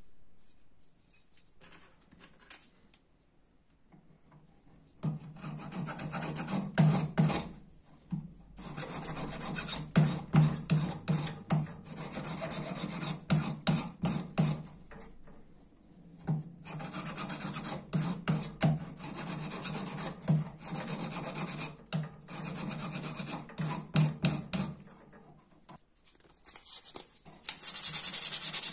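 Hand file rasping back and forth across twisted copper wire on a wooden block, starting about five seconds in, in runs of strokes with brief pauses. Near the end a louder, hissier rubbing starts.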